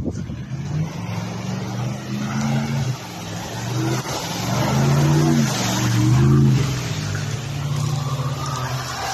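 Off-road SUV driving through muddy puddles on a dirt track, its engine revving up and down over the rush of tyres and splashing water. Loudest about five to six seconds in, as it comes closest.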